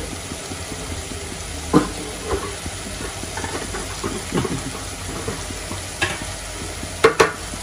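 Onion-tomato masala sizzling in a metal kadhai over a gas flame, with a few short scrapes and taps of a spoon against the pan. The loudest are two quick taps close together near the end.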